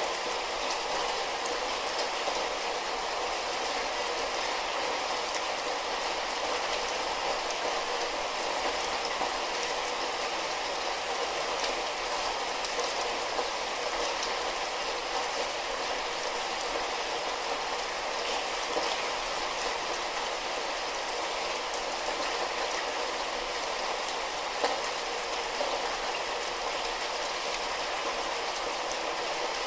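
Light rain falling steadily, an even hiss of rainfall with scattered sharper drop ticks.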